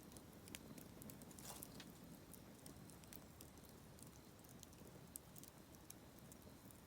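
Wood fire crackling in a campfire stand: faint, irregular sharp pops and ticks over a low, steady background.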